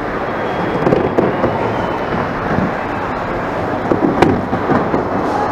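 Clattering and scraping of plastic trays, bags and a cardboard box being pushed along the roller conveyor of an X-ray security scanner, a dense rattle with sharp knocks about one second and four seconds in.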